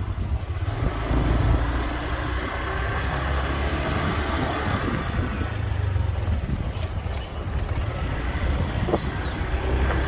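Steady rumble of riding a motor scooter: wind buffeting the microphone over engine and road noise.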